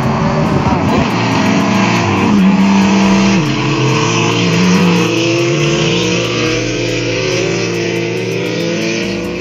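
AI-generated sound effect from the AudioLDM2 model playing back, resembling a car engine running and revving, with a pitch that steps and wavers. It starts abruptly at full loudness and sounds dull, with no high treble.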